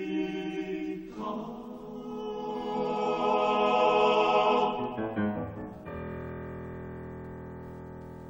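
Male-voice choir with piano singing the closing bars of a choral song, swelling to a loud held chord about three to four seconds in. The voices break off about five seconds in, and a final piano chord rings on, slowly fading.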